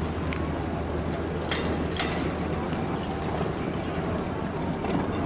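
An engine running steadily at idle, a low even rumble, with two sharp clicks about one and a half and two seconds in.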